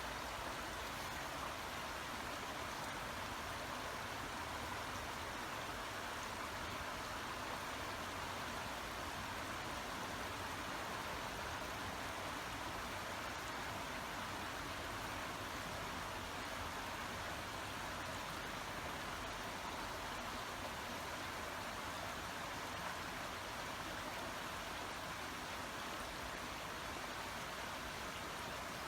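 Babbling brook: water running steadily, an even rushing with no breaks.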